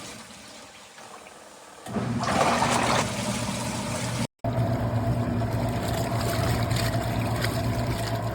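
Portable twin-tub washing machine running: a steady motor hum with water sloshing and trickling in the tub. The hum is faint for the first couple of seconds, then a burst of water rush comes in and the steady running carries on.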